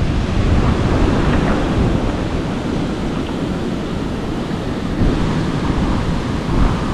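Waves washing onto the shore, with wind buffeting the microphone; the wash swells a little about five seconds in.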